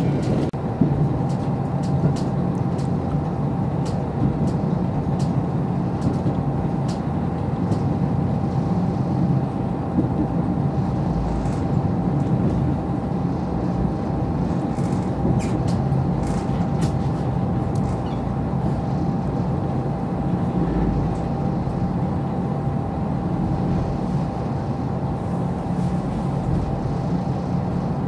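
Inside a JR Hokkaido KiHa 54 diesel railcar on the move: steady engine and running noise with a thin, steady whine over it and scattered light clicks.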